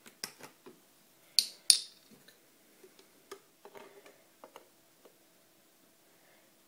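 Hard plastic clicks and ticks from handling a small plastic bottle and unscrewing its plastic cap. There are two loud, sharp clicks about a second and a half in, then a few lighter ticks.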